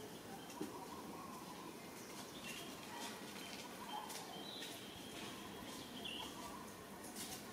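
Short, high chirping animal calls scattered over a steady outdoor background hiss, with a few faint clicks.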